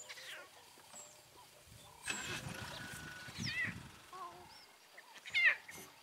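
Lion cub mewing: a few high, wavering calls that fall in pitch, the loudest about five and a half seconds in. A noisy rustle comes about two seconds in.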